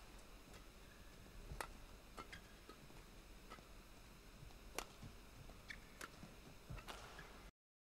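Faint, sharp strikes of badminton rackets hitting the shuttlecock in a rally: three louder hits a few seconds apart, with lighter ticks in between. The sound cuts out near the end.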